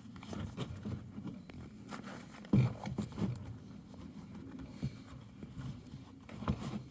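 Rubbing, scraping and small knocks of a seat cover being stretched and hooked down over a dirt bike seat, with a couple of dull thumps about two and a half to three seconds in.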